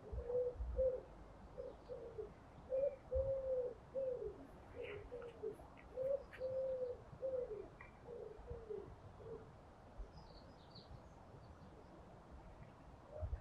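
A pigeon cooing, a long phrase of low repeated coos that stops about two-thirds of the way through, with small birds chirping faintly now and then.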